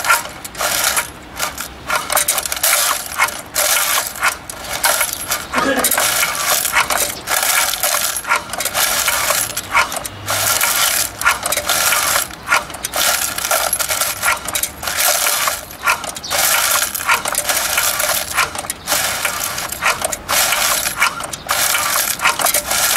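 Loose metal eyelets jingling and clinking continuously in the clear plastic hopper of a semi-automatic eyelet machine as they are worked down into its feed chute, filling the track before punching starts.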